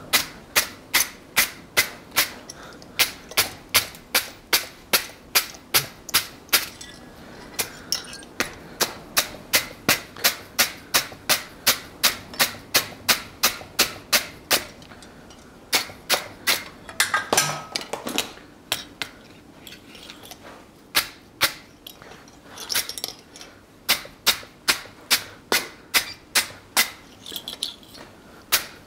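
Steel wire brush scrubbing a hot forged steel leaf held against the anvil: quick, sharp, scratchy strokes, about three a second, pausing now and then.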